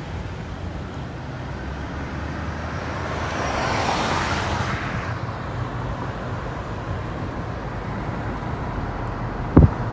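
Steady car road and engine rumble heard from inside a moving car, with a surge of passing-traffic noise that rises and fades about four seconds in. A single short, sharp thump comes near the end.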